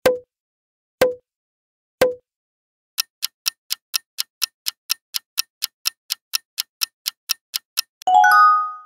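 Quiz-game sound effects: three short pops a second apart as the answer options appear, then a countdown timer's clock ticking fast, about four or five ticks a second, for about five seconds. As the timer runs out near the end, a short chime sounds.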